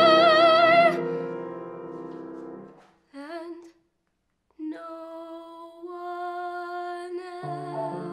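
Woman singing: a long held note with vibrato cuts off about a second in, and the accompaniment chords under it fade away. After a short wavering phrase and a brief silence she sings again with a steady tone, and piano chords come back in near the end.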